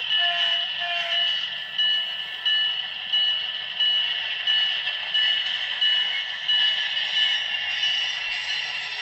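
Model diesel locomotive's LokSound sound decoder playing a locomotive bell, ringing evenly about one and a half strikes a second over steady engine and running sound.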